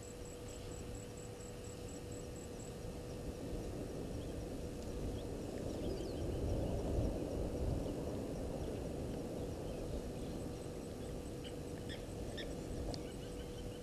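Outdoor ambience: a low rumbling noise that swells about halfway through, over a steady hum. Faint short bird chirps come and go, with a fast, even, high ticking at the start and again near the end.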